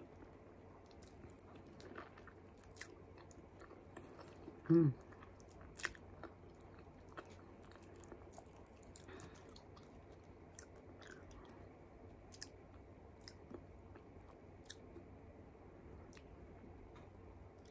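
Faint, close chewing and small wet mouth clicks of someone eating soft food by hand. There is a short hum from the eater about five seconds in.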